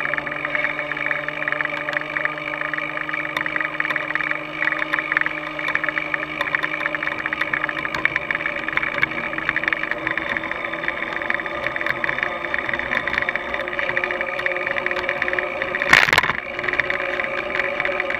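Steady ride noise from a moving rider's camera: wind on the microphone, tyre and road noise and passing traffic, with a low steady hum that fades out past the middle. One sharp knock, the loudest moment, about 16 seconds in, as from a bump in the road jolting the mount.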